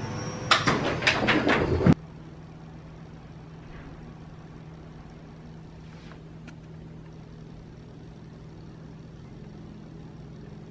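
A quick run of loud knocks and rattles that stops abruptly about two seconds in. Then a steady low hum of room tone, with a couple of faint ticks.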